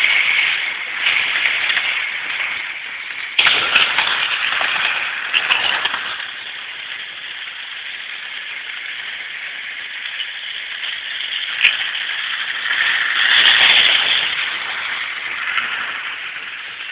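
Model trains running on track, their wheels and motors making a rushing, rattling noise that swells twice as trains pass close, with a few sharp clicks.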